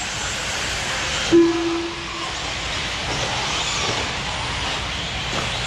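1/8-scale electric RC truggies racing on a dirt track: a steady rush of motors and tyres with faint rising and falling whines. A short steady tone sounds about a second and a half in.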